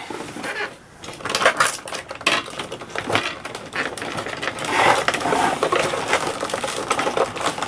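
Hard plastic clicking, rattling and knocking, with the cardboard box and plastic packaging tray creaking, as a toy dinosaur figure is tugged hard against the plastic fasteners holding it to its base.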